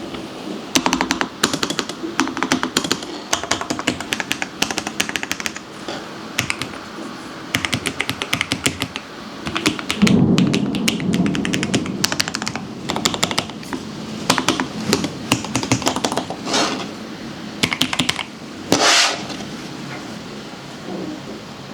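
Typing on Lofree low-profile mechanical keyboards: runs of rapid key clicks in bursts with short pauses between them, with a deeper, louder stretch about ten seconds in.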